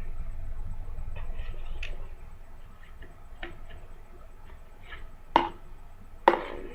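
Small plastic clicks and taps of a glue bottle and its cap being handled and unscrewed, with two sharp knocks about a second apart near the end.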